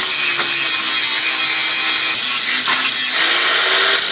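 Angle grinder running under load, its disc grinding down the fresh weld on the steel car frame around a welded-in nut, a steady loud hiss with the motor's pitch wavering slightly as it is pressed into the metal.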